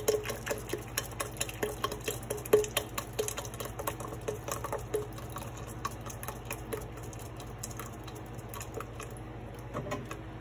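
Guajillo chile sauce being stirred and pressed through a metal mesh strainer: a run of quick clicks and scrapes against the mesh, dense over the first five seconds and sparser after, over a steady low hum.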